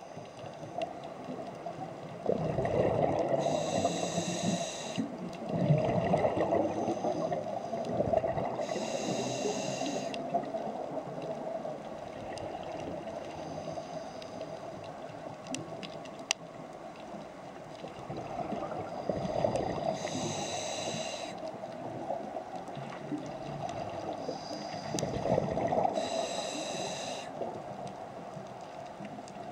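Scuba diver breathing through a regulator underwater. Four hissing inhalations, each a second or so long, alternate with louder bubbling, gurgling exhalations.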